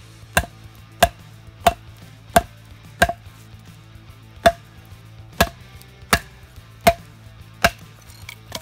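A baton striking the spine of a D2-steel bushcraft knife, driving the blade down through a round of seasoned chestnut: about a dozen sharp knocks, roughly one every 0.7 s with a short pause near the middle, until the round splits near the end.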